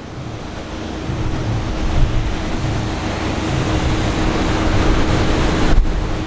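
Wind buffeting the microphone over Black Sea waves washing on the shore: a steady noise with a gusty low rumble that grows louder over the first second or so, and a faint steady hum underneath.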